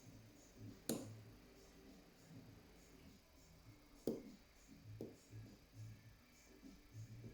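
Faint scraping of a lever-lock pick and tension tool working inside an ERA 5-lever padlock, with three sharp clicks: one about a second in and two more around four and five seconds in.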